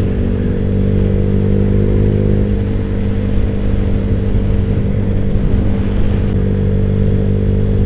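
Honda Vario scooter's single-cylinder engine running at a steady cruising speed, its note holding an almost constant pitch.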